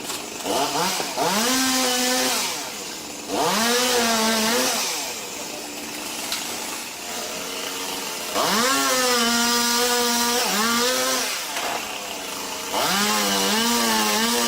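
Chainsaw revving up to full throttle and holding there, then dropping back toward idle between pulls, four times over.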